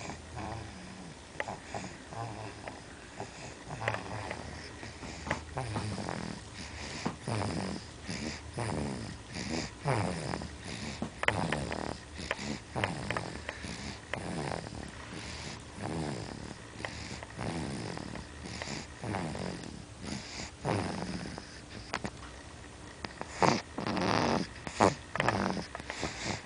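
A sleeping baby snoring, a short snore with each breath about once a second, the loudest ones near the end.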